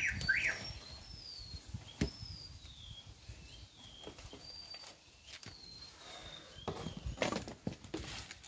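Birds calling with short, thin whistled notes throughout, after three quick rising chirps at the start. Over them come scattered knocks and rustling scrapes as a husked coconut is handled and set down on a wooden block, the loudest about two seconds in and again near the end.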